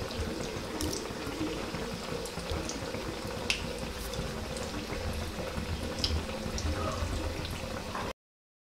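Oil sizzling faintly in a frying pan: a steady hiss with scattered light crackles, which cuts off abruptly near the end.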